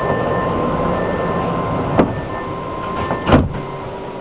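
Doors of a Matra VAL 256 metro car closing: a steady electronic warning tone sounds over the car's hum, then a sharp click about two seconds in and a heavy thud a little after three seconds as the sliding doors shut.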